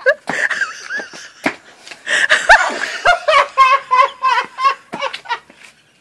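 People laughing hard, a loud outburst about two seconds in followed by a run of rapid ha-ha bursts.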